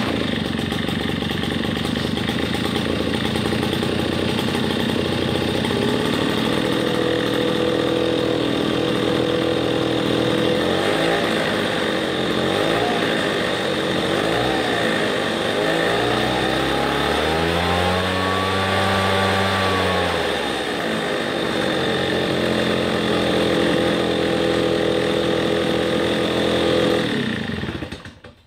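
Red Max EB7001 backpack leaf blower's freshly rebuilt two-stroke engine catching on a cold pull-start and running at a steady idle. In the middle the throttle is blipped up and down several times, then given one longer rev up and back down, before it returns to idle and is shut off near the end. It runs smoothly and idles evenly, the sign of a healthy engine after a piston replacement.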